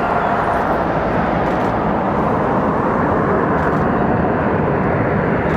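Airbus A380 on approach, its four jet engines giving a steady rush of noise with a faint whine running through it.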